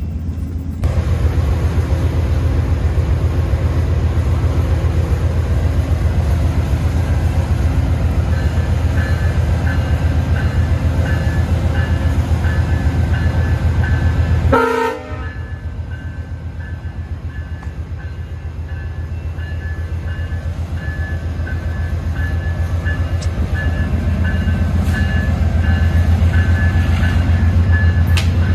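Train running past with a steady heavy low rumble, a level-crossing bell ringing over it from about eight seconds in. The sound drops out briefly about halfway through, then builds again toward the end.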